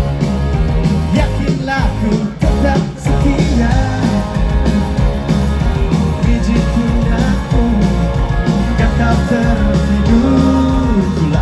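Live rock band performing a song, loud and continuous, with a melody line over a full band.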